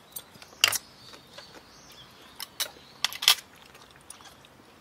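A few sharp clicks and snips as kitchen scissors cut up cooked crab and seafood in a hotpot: one just under a second in, then a cluster about two and a half to three and a half seconds in.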